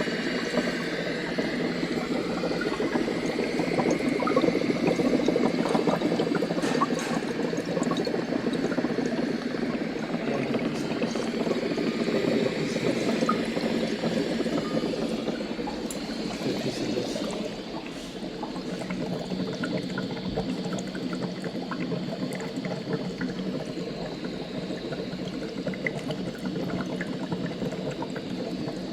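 Water bubbling at the boil over a laboratory burner: a dense, steady bubbling with many small pops, easing slightly in level a little past the middle.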